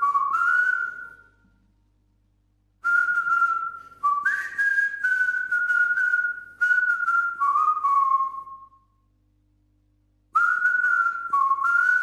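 A whistled tune in short phrases, the pitch stepping up and down between a few clear notes, with pauses of about a second and a half between phrases.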